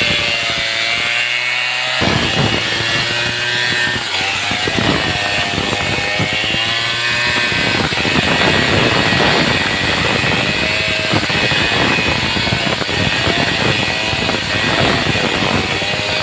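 Stihl chainsaw running at high speed while cutting through jackfruit wood, its engine pitch rising and dipping as the bar bites into the cut.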